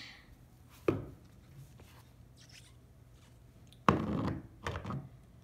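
Plastic model horse knocking against a tile floor as it is handled and picked up: one sharp knock about a second in, a louder knock with a short scrape just before four seconds, and a softer one about a second later.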